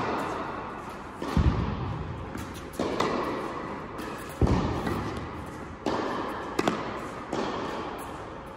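Tennis ball struck by rackets and bouncing during a rally, a sharp pock about every second or so, each echoing in a large indoor tennis hall.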